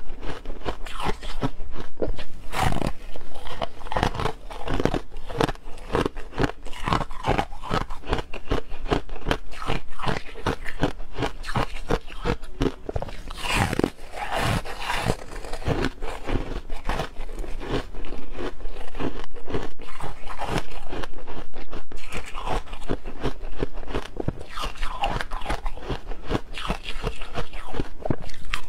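Close-miked crunching and chewing of soft freezer frost: a steady run of rapid, crisp crunches, with louder bites about a third and half way in and again over the last ten seconds.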